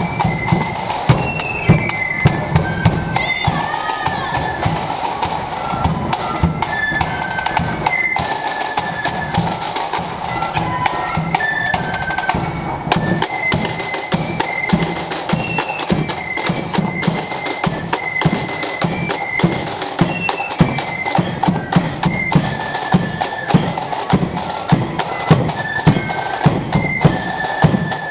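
Marching flute band playing a tune: a high, shrill flute melody over steady drum beats, with a bass drum among the drums.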